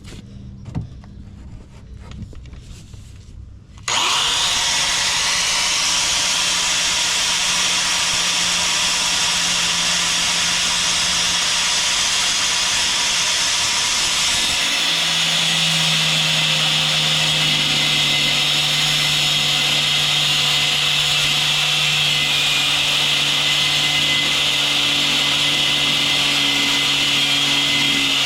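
A power cutting tool, most likely an angle grinder, starts suddenly about four seconds in and runs steadily with a high whine as it cuts through metal, with a slight change in its note about halfway through. A few light handling knocks come before it starts.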